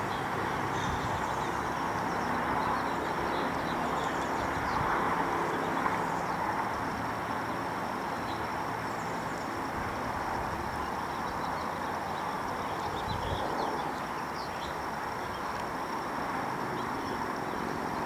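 Steady outdoor background noise with faint, scattered bird chirps and a thin steady high-pitched whine.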